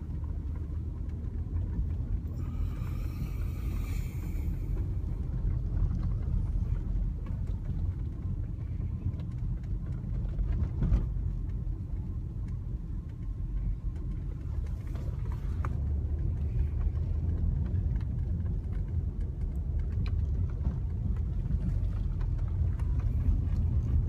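Steady low rumble of a car driving on a snow-covered street, heard from inside the cabin: engine and tyre noise.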